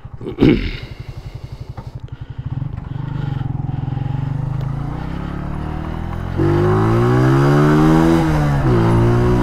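Honda CG125 single-cylinder four-stroke motorcycle engine idling with an even putter, with a short clunk about half a second in. It then pulls away and runs steadily. About six seconds in it gets louder and rises in pitch under acceleration, dips near the end and climbs again.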